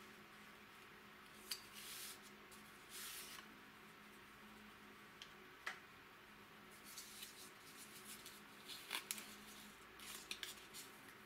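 Cardboard packaging being handled: a small box and a rolled corrugated-cardboard sleeve rustling, scraping and clicking faintly and intermittently as the valve is drawn out and the sleeve is unrolled.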